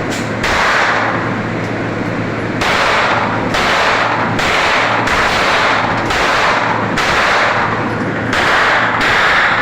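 Repeated gunshots, roughly one a second, each starting abruptly and trailing off into a loud hiss over a steady low hum.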